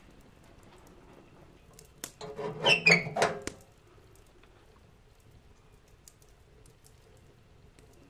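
Rusty metal oven door and its latch being worked: a click about two seconds in, then a second or so of metal clanking and scraping with a short squeak, as the pan goes into the oven.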